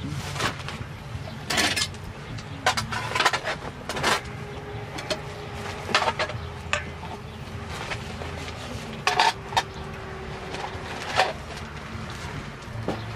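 Spoons clinking and scraping against a stainless steel mixing bowl as a cucumber salad is tossed, in irregular knocks with short pauses between them.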